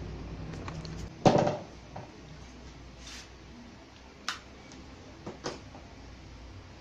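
A loud dull knock about a second in, then a few short sharp clicks, fitting a mains plug being pushed into an extension outlet.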